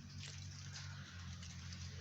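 Steady rain falling, a continuous hiss with scattered drips, over a steady low hum.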